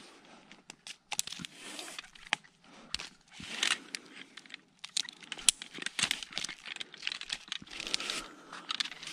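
Tree-climbing gear handled close to the microphone: a carabiner and sling clipped around the trunk and a rope worked through its hardware, giving irregular sharp metal clicks and clinks over close rustling of rope, clothing and branches.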